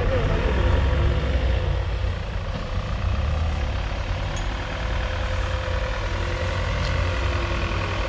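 Off-road vehicle's engine running steadily at low revs, a continuous deep rumble.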